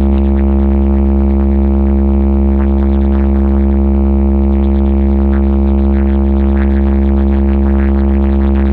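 Electronic 'vibration bass' DJ track holding one long, deep, unchanging bass drone with a stack of overtones above it, loud and without any beat.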